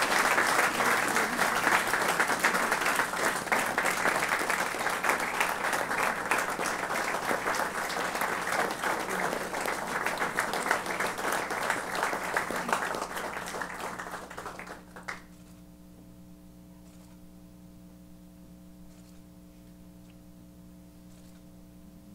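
A room of people applauding, dying away and stopping abruptly about fifteen seconds in. After that only a faint, steady electrical hum remains.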